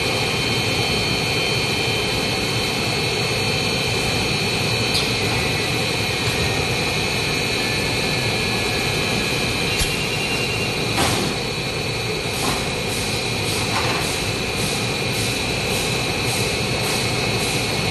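Fully automatic three-layer stretch film production machine running: a steady loud machine noise with constant high-pitched whines. From about halfway, a regular clicking about twice a second runs over it.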